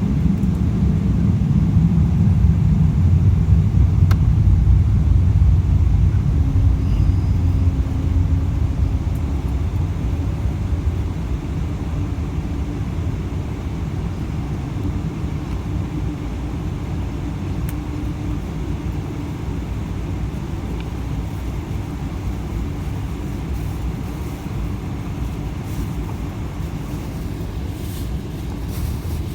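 Steady low rumble of a moving vehicle, louder over the first ten seconds or so and then easing off to a lower, even level.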